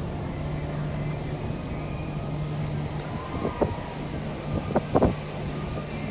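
Steady low hum of a cruise ship's machinery and ventilation on the open top deck, with wind on the microphone. About halfway through come three short thumps.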